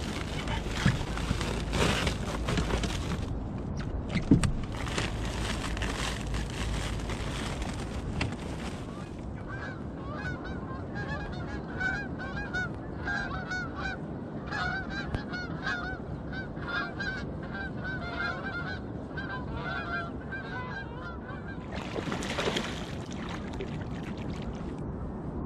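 A flock of Canada geese honking, many short calls overlapping for about ten seconds through the middle. Before the honking there is a steady rushing noise with a sharp knock about four seconds in.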